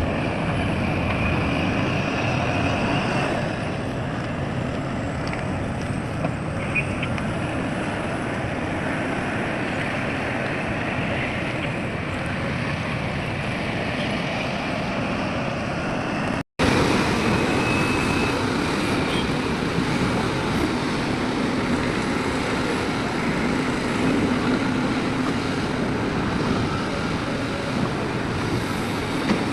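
Heavy diesel machinery running steadily, a continuous engine noise with no clear rhythm. About halfway through the sound cuts out for an instant and resumes a little louder.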